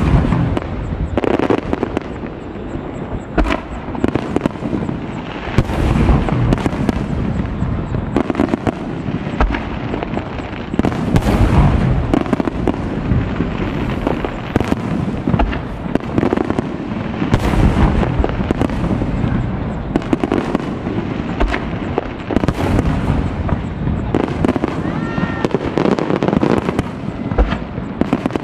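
Japanese aerial firework shells bursting one after another, a dense run of booms about every second with a steady rumble between them.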